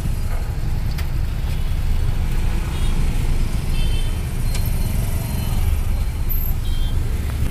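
Road traffic at a signal: a steady low engine rumble from idling and slow-moving vehicles, with a few short faint high beeps.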